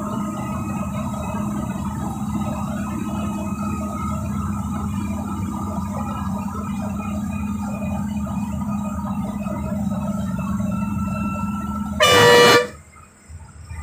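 A bus engine drones steadily, heard from inside the cab. About twelve seconds in, the bus horn gives one loud, short blast as it nears a bend, then the sound drops away for about a second.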